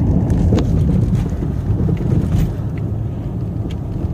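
Inside a moving car: a steady low rumble of road and driving noise, with a few faint light clicks.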